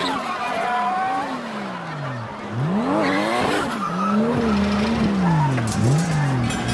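Drift-car engines revving hard, the pitch climbing and dropping several times in quick succession, with tyres squealing as the cars slide.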